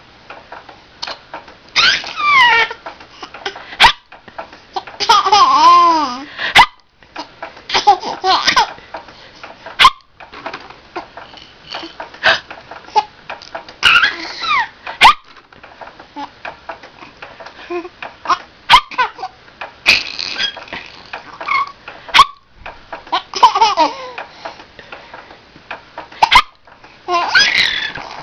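A baby hiccuping, a short sharp hic every three to four seconds, and laughing and giggling in bursts between the hiccups.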